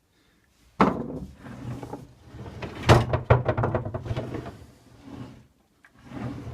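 Baltic birch drawer running out and back on its drawer slides: a rolling rumble that starts suddenly about a second in, a knock as it hits the stop about three seconds in followed by rapid clicking, and more sliding near the end.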